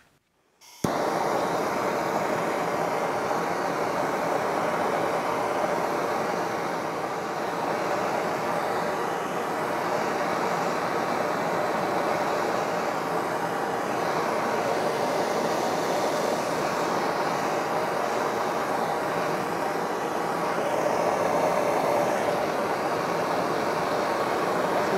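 Handheld gas torch burning with a steady hiss that starts abruptly about a second in. It is heating a cast drive pulley's bore to about 100 °C so the pulley can be shrink-fitted onto the milling machine spindle.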